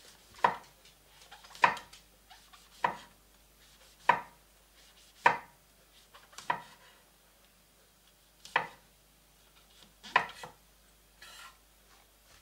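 A kitchen knife slicing raw button mushrooms thin on a bamboo cutting board. Each stroke ends in a sharp knock of the blade on the board, about once a second, with longer gaps between the strokes near the end.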